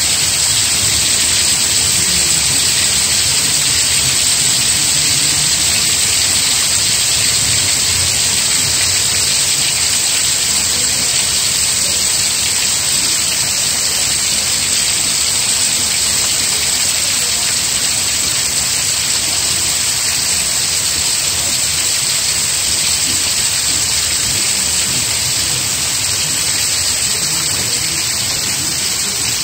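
Steady rain falling, an even hiss with no single drops or thunder standing out.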